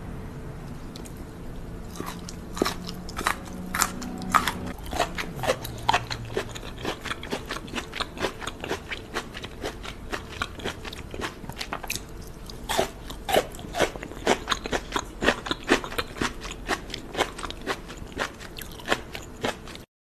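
Close-miked crunching bites and chewing of crisp green asparagus: a dense run of sharp crunches, with a fresh, louder bite a little past halfway.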